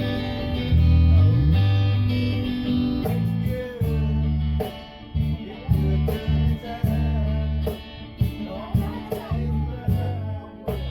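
Guitar playing: held low notes that slide in pitch for the first three seconds or so, then short, choppy chords struck in a steady rhythm.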